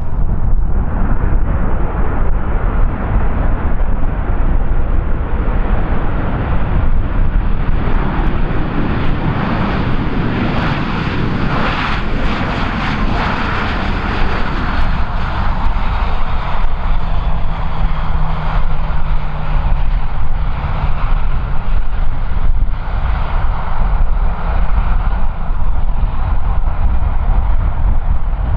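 An airliner's engines passing, swelling to a peak about twelve seconds in and then fading away, over heavy wind buffeting the microphone.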